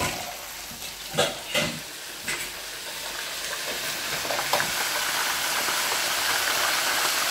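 Floured green-lipped mussels deep-frying in an electric deep fryer: a steady oil sizzle that grows slowly louder, the sound of the water in the fresh mussels mixing with the hot oil. A few light knocks from the wire fry basket being handled in the first half.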